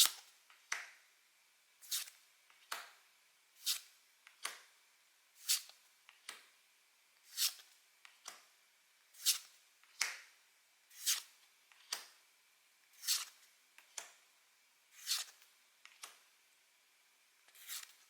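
Pokémon trading cards being flipped through one at a time, each card slid off the stack with a short crisp swish, about once a second.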